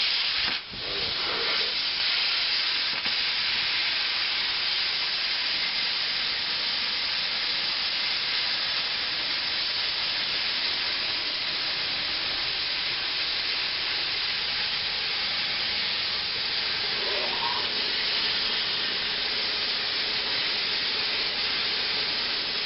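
Air plasma cutter running a long cut on half-inch steel plate: a steady, loud hiss of air and arc, with a brief drop about half a second in. The owner blames the poor cut on an air compressor that is not powerful enough.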